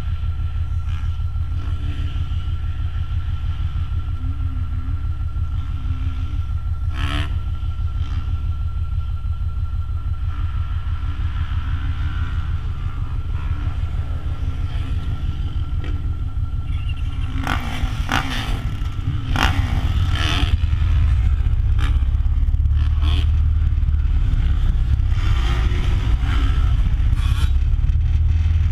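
Motocross bike's engine idling with a steady low rumble, getting louder about two-thirds of the way through. A few sharp knocks and clatters, one near a quarter of the way in and a cluster near two-thirds.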